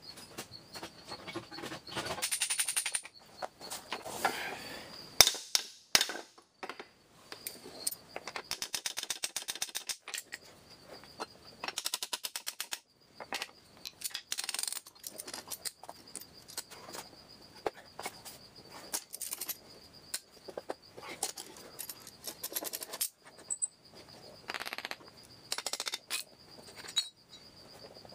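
Metal hand tools and parts clicking and knocking against a 1970s Clinton small engine's bare cylinder block, with runs of fast even clicks and two sharp knocks about five and six seconds in. A cricket chirps steadily in the background.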